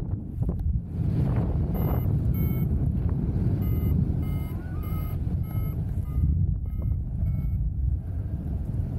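Paragliding variometer sounding a run of short electronic beeps, roughly two a second, from about two seconds in until near the end: the climb tone that signals the glider is rising in lift. Heavy wind buffeting on the microphone underneath.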